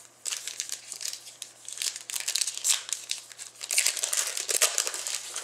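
Foil trading-card pack wrapper crinkling and crackling as it is handled, in quick irregular runs that grow busier in the second half.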